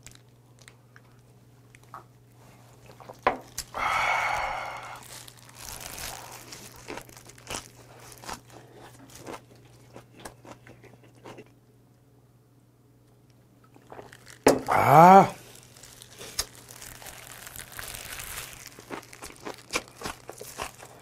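A man chewing and crunching close to the microphone on wraps of salted napa cabbage with raw oysters and boiled pork, with many small wet mouth clicks. A loud breathy exhale about four seconds in, and a short hummed 'mmm' that rises and falls in pitch about fifteen seconds in.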